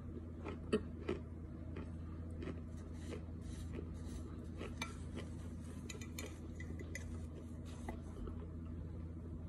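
A spoon clinking and scraping in a glass baking dish as it breaks up and scoops dry cornstarch crumbles, with a few sharper knocks in the first second and many small clicks after.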